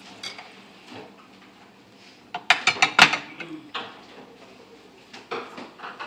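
Spoon and ceramic bowls clinking and clattering as food is dished out and bowls are set on a plate: a quick cluster of sharp clinks about two and a half seconds in, then a few lighter knocks near the end.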